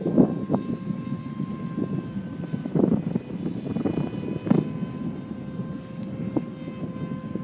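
Electric motor and propeller of a Dynam Hawk Sky RC glider, running with a steady whine. A few brief gusts of wind hit the microphone, about three and four and a half seconds in.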